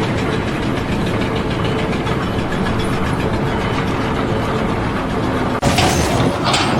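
Heavy machinery engine running steadily. About five and a half seconds in, the sound cuts abruptly to something louder and hissier.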